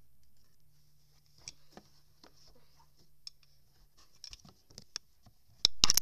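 Scattered light clicks and taps of small objects being handled and moved about, ending in a brief, louder clatter of knocks just before the end, over a faint steady low hum in the first few seconds.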